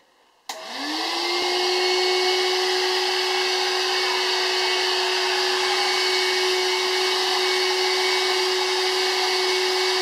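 Corded stick vacuum cleaner switched on about half a second in: its motor spins up with a quickly rising tone, then runs steadily with a constant hum and rush of air.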